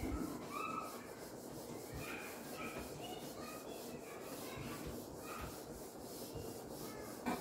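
Whiteboard duster rubbing back and forth across a whiteboard, wiping off marker writing, with brief faint squeaks now and then.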